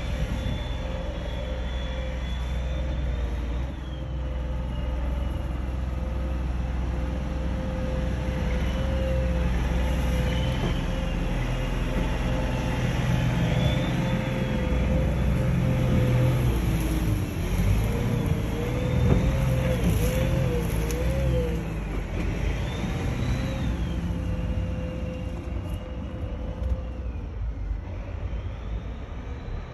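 SHERP ATV's diesel engine running as the machine crawls along a sandy trail. The low engine rumble is steady, with a high whine above it that rises and falls again and again.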